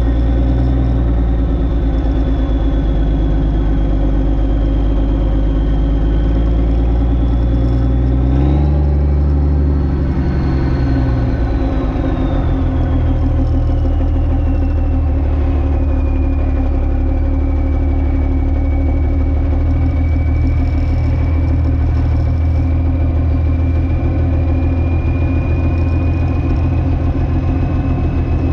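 Semi truck's diesel engine running at low speed while reversing with a lowboy trailer, with a thin high whine drifting slowly in pitch. The engine note rises briefly about eight seconds in, then settles lower and steady.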